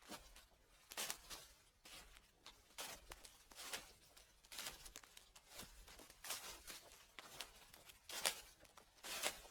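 Footsteps crunching through dry fallen leaves at a steady walking pace, a crackling step a little more often than once a second.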